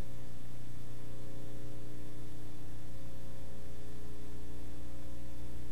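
Steady electrical hum with a layer of hiss, unchanging throughout.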